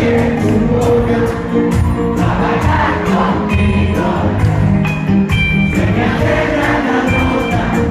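Latin dance band playing live with lead singing, congas and bass, with fast, steady percussion strokes, heard from among the audience in a large hall.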